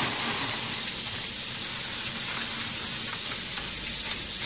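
Steady hiss of a pressure cooker venting steam on the stove, with a few faint crackles from dry yufka pieces and a plastic bag being handled.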